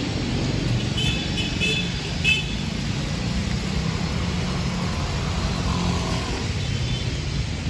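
Road traffic passing on a wet street, a steady low rumble of engines and tyres. Three short high-pitched beeps sound in quick succession about one to two and a half seconds in.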